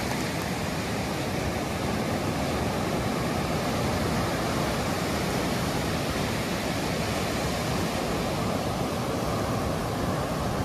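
Sea surf: waves breaking and washing up a sand beach at high tide, a steady rushing hiss.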